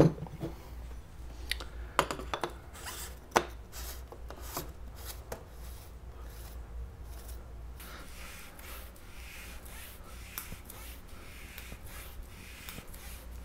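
A paper shop towel rubbing and wiping grease off rocket motor hardware, with several sharp taps and knocks of the parts being handled in the first five seconds or so, then fainter rustling and handling.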